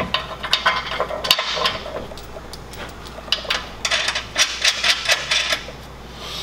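Metal clinking and rattling as the steel winch mount plate and its bolts are handled and fitted by hand against the truck's frame, in two spells of clatter.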